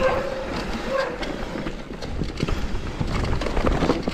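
Enduro mountain bike rattling over a rough trail: a dense, irregular clatter of knocks from the chain, frame and tyres hitting rocks and roots, over a low wind rumble on the microphone.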